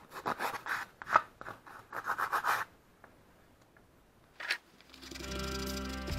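Sandpaper rubbing a small balsa-wood lure body by hand in quick back-and-forth strokes for about two and a half seconds, then it stops. A single knock follows near the middle, and background music fades in near the end.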